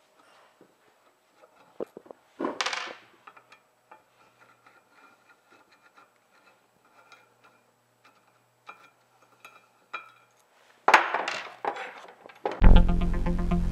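Screwdriver and steel engineer's vice parts clicking and scraping as the vice jaw faces are unscrewed and taken off, with a short scrape about two and a half seconds in. Near the end a louder clatter of metal on the bench as the removed jaw plate and screws are handled, then electronic music starts loudly.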